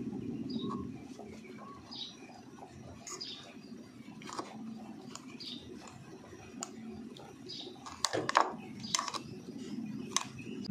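Metal fork mashing boiled taro against a ceramic plate, with irregular scrapes and clinks; a cluster of sharper clinks comes about eight seconds in.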